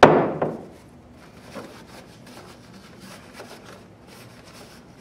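A sharp knock at the start, then soft rubbing and rustling of a rag wiping grease off the corner posts inside a CarveWright CNC carver.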